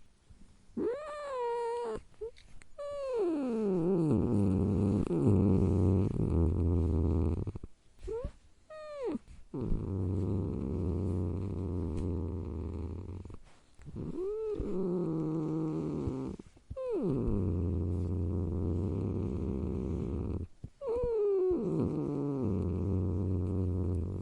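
Angry domestic cat yowling in drawn-out howls every few seconds, some sliding down in pitch. Between the yowls there is a steady low rumble.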